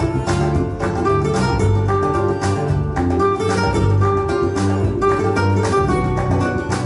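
Recorded music with quick plucked-string notes over a full bass line, played through Paradigm Monitor 11 floor-standing speakers driven by an Emotiva XPA-2 Gen3 power amplifier.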